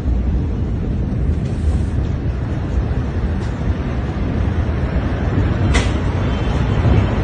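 Steady, loud low-pitched rushing rumble with no distinct events. A single short sharp click comes near the end.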